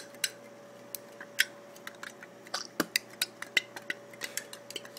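Thin metal lid of a dip can being flexed back and forth by hand, giving irregular sharp cracking clicks, several a second: the edges of the lid's centre giving out as the metal is worked loose.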